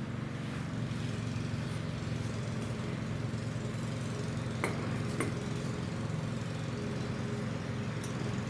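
An engine running steadily in the background, a low even drone, with two light clicks about halfway through.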